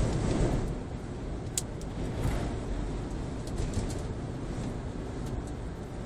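Road and wind noise inside a moving car's cabin on the highway: a steady low rumble, louder in the first second or so, with a few faint ticks.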